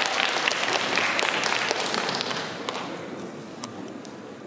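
Audience applauding, the clapping dying away to a few scattered claps.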